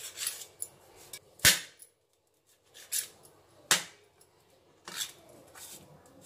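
Kitchen knife cutting the crusts off slices of bread on a stainless steel plate. The blade knocks and scrapes against the plate in several sharp clicks, the loudest about one and a half seconds in.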